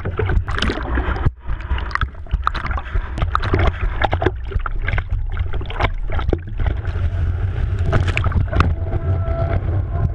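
Water sloshing and splashing around a slalom water ski as the skier is pulled up out of shallow water and starts skimming through the spray, over a constant low rumble of rushing water and wind.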